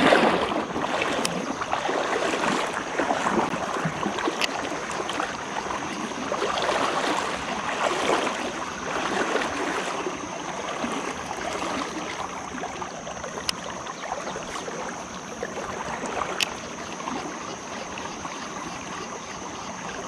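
Shallow river water rushing and lapping just below the microphone: a steady washing noise that swells and eases every few seconds. A few faint sharp ticks sound over it.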